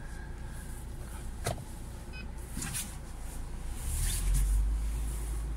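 UAZ Patriot's ZMZ Pro petrol engine running as the SUV creeps along at parking speed, heard from inside the cabin. The low rumble grows louder about four seconds in, and there is a single sharp click about a second and a half in.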